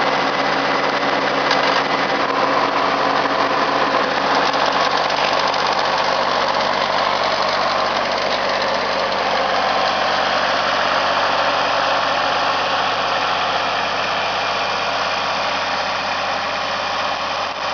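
Shibaura three-cylinder diesel engine of a New Holland TC29D compact tractor running at a steady idle.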